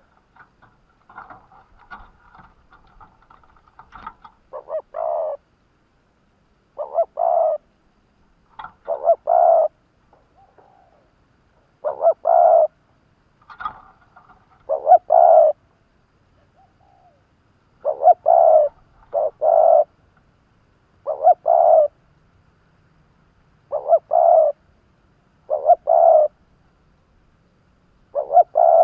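Spotted dove cooing: a series of short, full coos in singles and pairs every couple of seconds, after softer quick notes in the first few seconds. It is the call of a caged decoy dove, used to draw wild spotted doves in.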